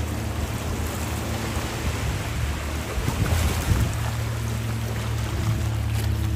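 A boat engine running steadily with a low drone, over the wash of waves on the shore and wind on the microphone.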